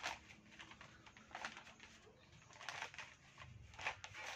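Black plastic polybag rustling and crinkling in short crackles as it is pulled open and flexed by hand, with a soft thud a little after three seconds in. A bird calls in the background.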